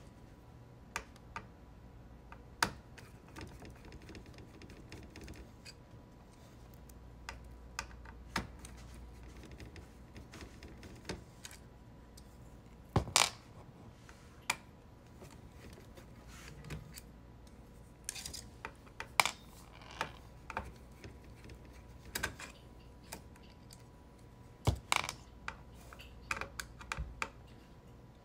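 Irregular small clicks and taps of a magnetic Phillips screwdriver working the ink-damper screws on an Epson 8550 printhead carriage, with a few louder clicks in short clusters and the odd clink of a small metal screw.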